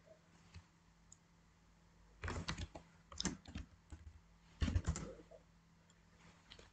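Computer keyboard typing, quiet: several short runs of keystrokes from about two seconds in to about five seconds in.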